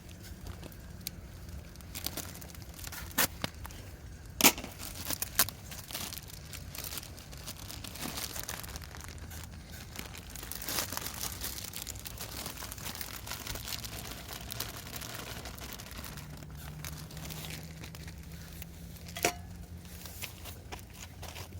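Rustling and crinkling with scattered sharp clicks and knocks, the loudest about four and a half seconds in.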